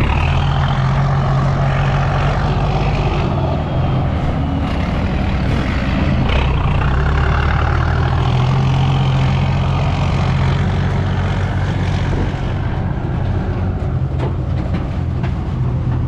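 Diesel engine of a trailer dump truck with a loud exhaust, running hard without a break, its pitch shifting a few times as it works.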